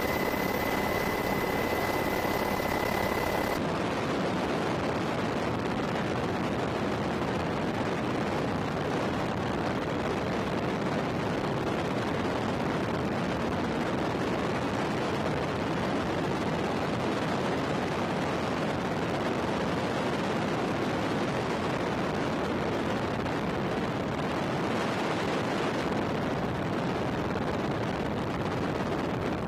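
HH-60G Pave Hawk helicopter flight noise: a steady, dense roar of rotors and turbines mixed with rushing wind. A steady high whine runs with it at first and cuts off about three and a half seconds in.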